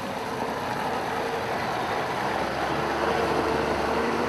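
An engine running steadily, with a steady hum under a haze of noise.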